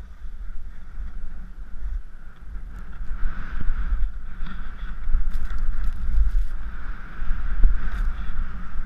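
Wind rushing over the microphone of a skier's helmet camera during a fast powder descent, with the skis hissing through the snow. The rush grows louder from about a third of the way in.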